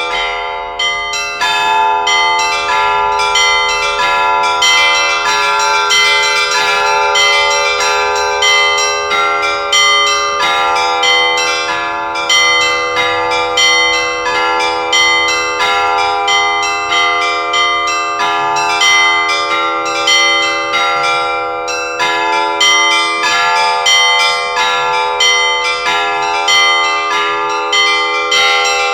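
Russian Orthodox church bells rung in a continuous peal. The smaller bells are struck rapidly, several times a second, over the sustained ringing of the larger bells.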